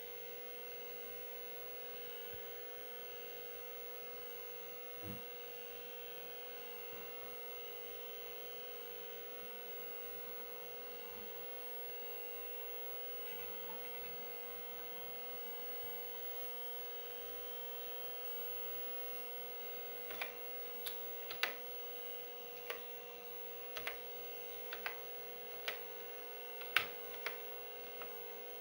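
Steady electronic hum and whine, with many fixed tones, from an Amstrad PC 1512 running with its upgraded 20MB hard drive. In the last third come about a dozen sharp, irregularly spaced clicks.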